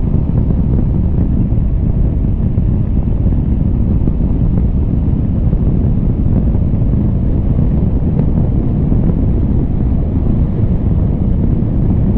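Steady, loud rumble of wind buffeting the microphone of a motorcycle-mounted camera while the bike rides at road speed.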